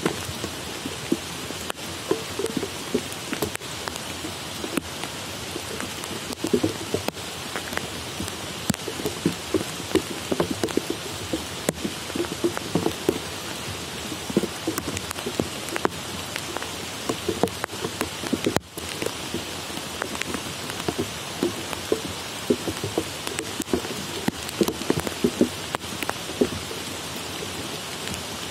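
Steady rain falling on tropical forest, a constant hiss with many heavy drops landing close by in an irregular patter.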